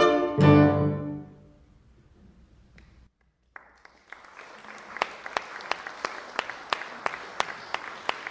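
Cello and piano strike a final chord that rings out and dies away within about a second and a half. After a short silence, audience applause starts about three and a half seconds in and builds, with individual claps standing out.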